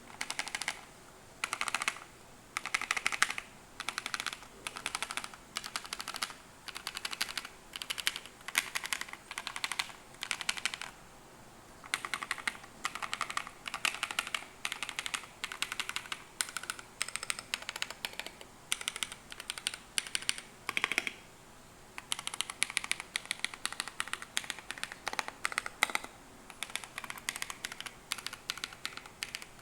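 Typing on an Ajazz AC064 mechanical keyboard with lubed Akko CS Radiant Red linear switches and Akko Wave ASA-profile keycaps: quick runs of keystrokes broken by short pauses, with a couple of slightly longer breaks.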